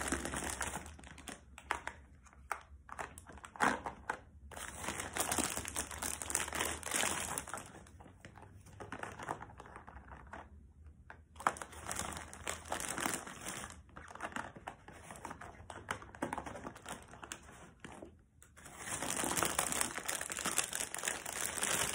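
Small plastic bags of diamond-painting drills crinkling as they are handled, in uneven spells with short pauses, and a few sharp clicks.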